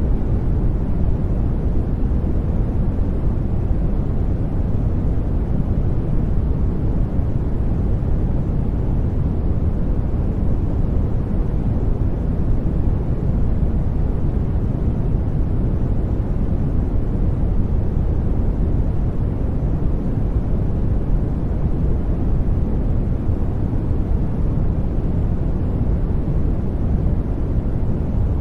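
Steady, unbroken generated noise sold as white noise. Most of its energy sits low and fades toward the top, so it sounds more like a deep, even rush than a bright hiss.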